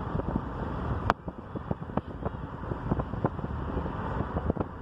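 Moving car heard from inside: steady road and wind noise, with scattered small clicks and one sharp click about a second in.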